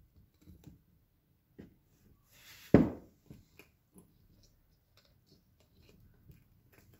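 Light metallic clicks and handling noise as small shims and parts are fitted onto a Ford 8N tractor governor's shaft by hand to set the bearing preload. A single louder thump comes a little under three seconds in.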